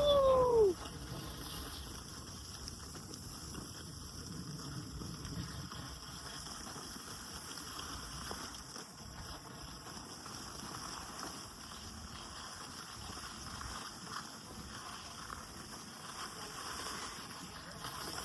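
Steady rushing noise of wind and snow sliding under a moving skier, after a short falling whoop of a voice at the very start.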